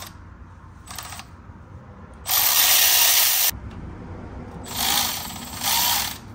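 Power ratchet spinning a bolt out in bursts: a brief burst about a second in, a loud run of about a second just after two seconds in, and two shorter runs near the end with a faint rising whine.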